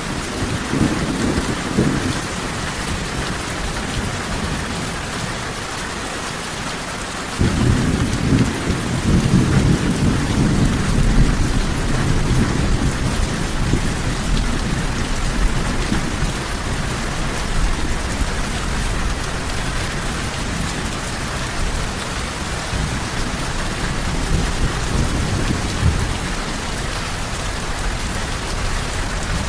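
Steady rain hissing on a surface, with low rolling thunder. The rumble comes in suddenly about seven seconds in and keeps rolling under the rain.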